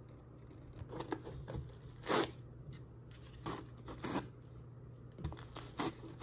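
Short scratchy rustles and scrapes of hands working in the foam lining of a hard gun case, pushing ribbed rubber pegs into the foam, in about half a dozen separate bursts; the loudest comes about two seconds in.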